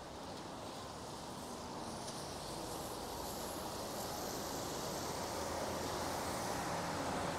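Rainy street ambience: a steady, even hiss that grows a little louder from about two seconds in.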